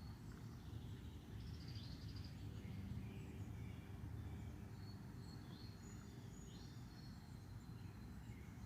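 Songbirds chirping and whistling, a few scattered short high calls, over a steady low background rumble.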